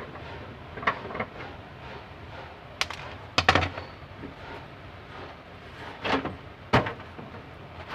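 Plastic rear cabinet of a CRT television knocking and clunking as it is handled and pulled off. There are several sharp knocks, the loudest about three and a half seconds in and again near seven seconds.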